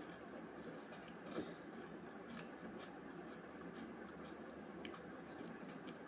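Faint chewing of a crisp almond cookie, with a few short sharp crunches scattered through.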